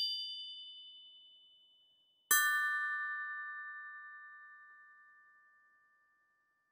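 Two-note chime sting of an animated logo: a high bell-like note rings and fades, then a lower chime note is struck about two seconds in and rings out slowly over about four seconds.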